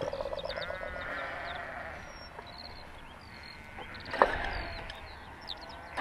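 A long, wavering, bleat-like animal call lasting about two seconds, over small birds chirping. A single sharp knock comes about four seconds in.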